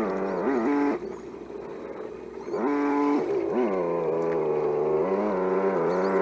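Simulated engine sound from the electronic sound modules of 1:10 scale RC crawlers, revving up and down as the trucks are driven. The engine note drops away about a second in and comes back about a second and a half later with a steady tone before revving again.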